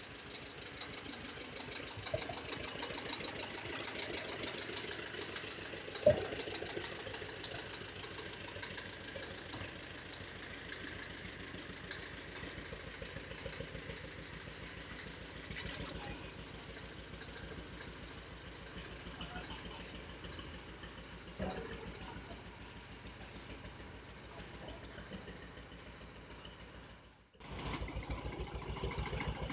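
Diesel engine of an old Hamm three-wheel road roller running with an even, rapid beat as the roller works, with one sharp knock about six seconds in. Near the end the sound drops out briefly and comes back louder.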